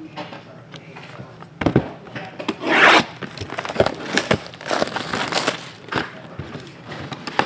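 Plastic shrink wrap crinkling and tearing as a sealed trading-card box is unwrapped, with a longer rip about three seconds in. Light taps and knocks come from the cardboard box being handled on the table.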